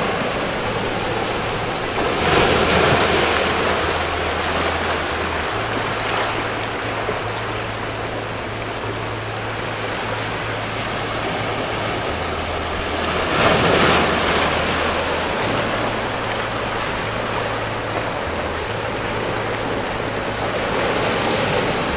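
Small ocean waves washing and breaking over a shallow rocky shoreline shelf, a steady rush of surf that swells louder twice, about two seconds in and again around the middle.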